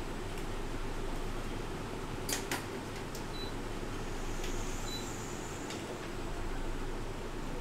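Steady fan-like whirr with a low hum, broken by two sharp clicks a little over two seconds in and a few fainter ticks.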